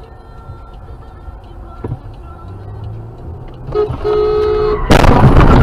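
Car road noise, then a car horn blaring for about a second, cut off by a loud crash of a collision near the end.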